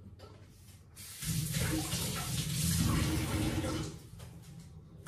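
Kitchen tap running into the sink for about three seconds, starting about a second in, as a potato is rinsed under it.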